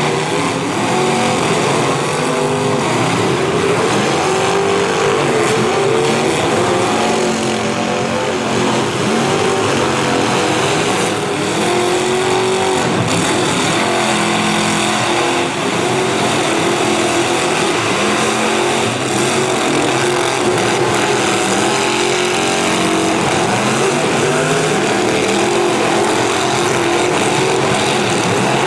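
Several demolition derby cars' V8 engines revving and running at once, their pitches rising and falling over one another without a break.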